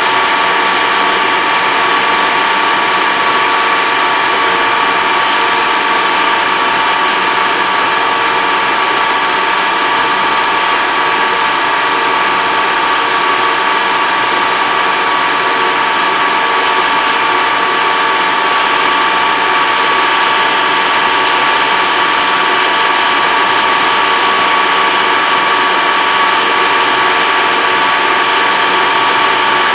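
Farm tractor driving at steady road speed, heard from inside its cab: a constant engine drone under a steady high-pitched drivetrain whine that does not change throughout.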